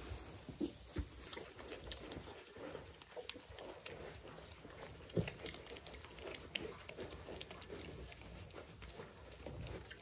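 Mini pig piglets eating watermelon on straw: faint, irregular chewing and crunching clicks with rustling, and a few louder knocks.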